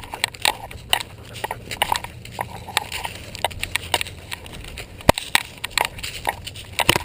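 Irregular clicks and knocks from a GoPro camera on a German Shepherd's nylon collar, jostled as the dog moves, over a steady low rumble.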